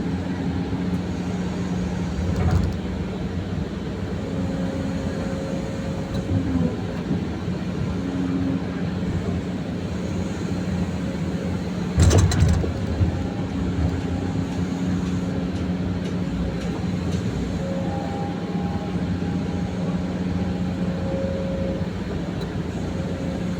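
Excavator diesel engine running steadily, with steady tones that fade in and out as it works. There is a small knock about two and a half seconds in and a loud sharp clunk about twelve seconds in.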